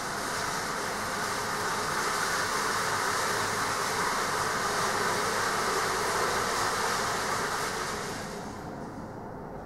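Metal roll cages being wheeled across hard ground, a continuous rolling rattle that swells, holds, then drops away about eight and a half seconds in.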